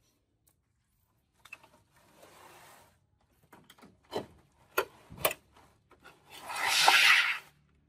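Thin white plastic sheet from an LCD TV's backlight being lifted and peeled away by hand: a few sharp crackles as it flexes, then a louder rustling swish lasting about a second near the end.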